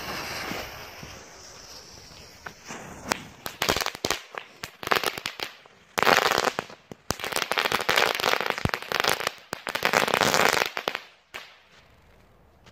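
Cluster of small Category 1 ground fireworks going off. A lit fuse hisses for about two seconds, then scattered sharp pops build into three long bursts of loud, dense crackling in the second half, which stop suddenly near the end.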